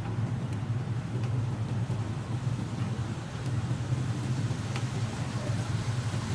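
A steady low hum runs throughout, with a few faint clicks about a second apart.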